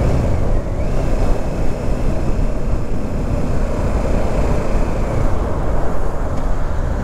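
Kawasaki Ninja 650 parallel-twin engine running steadily while the bike is ridden at road speed, mixed with wind and road rush on the camera microphone. A faint high whine holds for a few seconds after about a second in.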